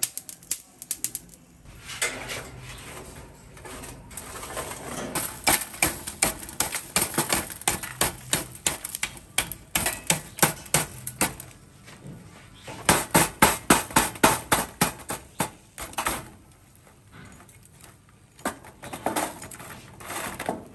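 A cleaver knocks and scrapes the baked salt crust off a salt-grilled moray eel in a stainless-steel tray, with crust crumbs rattling on the metal. The knocks come in quick runs of several a second, with short pauses between.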